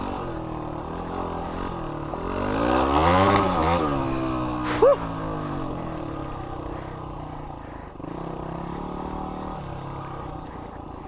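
Yamaha WR250X single-cylinder engine with a Delta Barrel4 exhaust, ridden off-road. The revs rise to a peak about three seconds in and drop back, then it runs steadily at lower revs. A short high chirp sounds about five seconds in.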